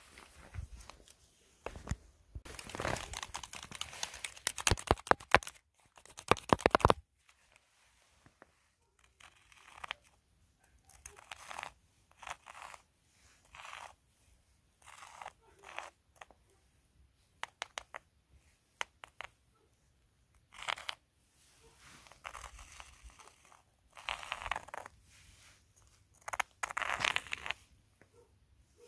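Footsteps crunching in snow, one crunch per step at an uneven pace, with a louder, crackling run of steps in the first few seconds and louder steps again near the end.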